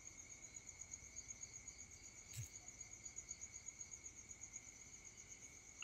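Near silence with a faint high-pitched chirping that pulses about seven times a second, and a single click about two and a half seconds in.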